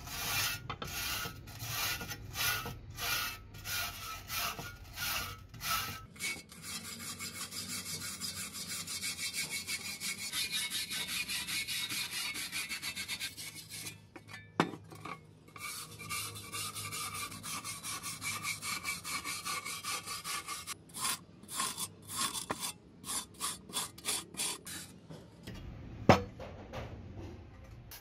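Hand scrubbing of a rusted steel shovel blade with a wire brush: rasping back-and-forth strokes, about two a second at first, then a dense, almost steady run of strokes. Two sharp knocks, one midway and a louder one near the end.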